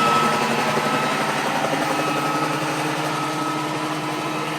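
Helicopter flying overhead: a steady engine whine over the rapid flutter of the rotor, slowly growing fainter.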